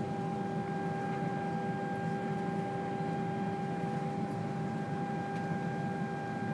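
Steady background hum inside a Boeing 787 cabin: a constant low rumble and air hiss with several steady tones held over it, no change throughout.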